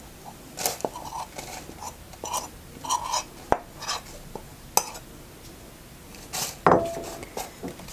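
A metal spoon scraping and tapping against a bowl and a springform cake pan as a crumbly flour-and-nut base mixture is scraped out into the pan: an irregular scatter of light clinks and short scrapes, with one louder clink near the end.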